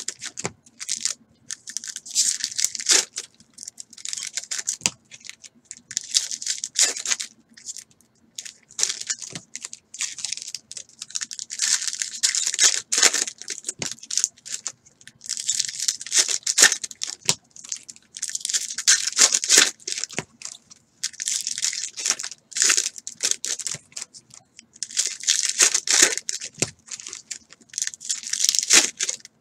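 Foil wrappers of 2018 Topps Series 2 baseball card packs being torn open and crinkled one after another. The crackling comes in repeated bursts of a second or two, with short pauses between as the cards are pulled and stacked.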